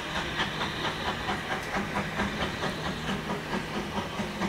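Jubilee Class steam locomotive's three-cylinder exhaust beating evenly about four times a second as it drifts slowly in, over a steady low hum.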